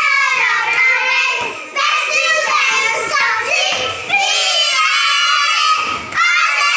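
Young children singing a nursery rhyme together in chorus.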